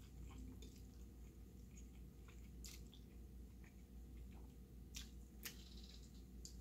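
Faint chewing of thick spicy black-bean ramen noodles, with a few soft wet mouth clicks about three seconds in and twice near five seconds.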